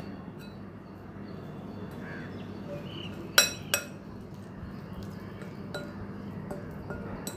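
Metal spoon stirring and scraping crumbly ragi-flour dough in a glass mixing bowl, with two sharp clinks of spoon on glass about three and a half seconds in.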